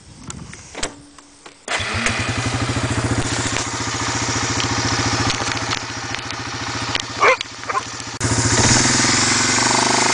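2006 Suzuki Eiger 400 ATV's single-cylinder four-stroke engine running with a steady pulse as the quad is ridden. It comes in abruptly about two seconds in after a quieter opening, and is a little louder near the end.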